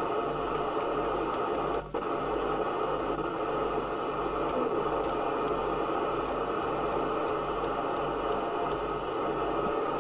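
Steady hiss and static from a Midland 77-805 FM CB radio receiver playing through an extension speaker, with a short dropout about two seconds in.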